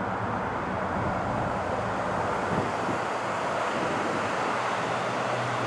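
Steady roar of an Airbus A320 airliner's jet engines as it descends on approach, slowly growing louder.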